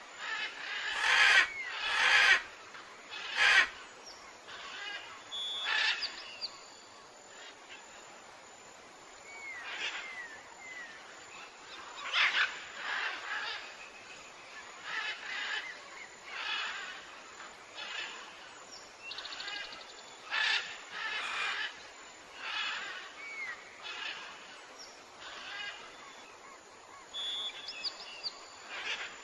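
Birds calling over and over, a short call every second or two, with a few brief chirps in between and three sharp clicks in the first few seconds.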